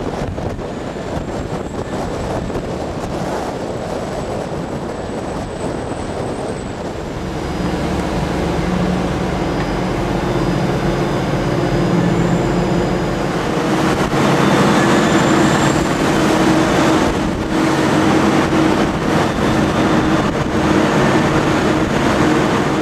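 Ship-mounted Liebherr hydraulic excavator working, a steady machinery drone with a rushing noise. About seven seconds in, a steady hum joins and the sound grows louder.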